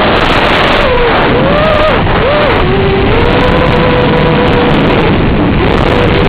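QAV-R 220 racing quadcopter's brushless motors whining, the pitch rising and falling every second or so with throttle, under a loud steady rush of strong wind.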